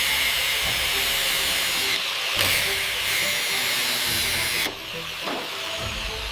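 A loud steady hiss, briefly broken about two and a half seconds in and quieter from about four and a half seconds, over faint background music.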